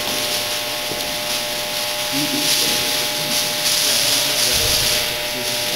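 Steady hiss with faint, indistinct voices.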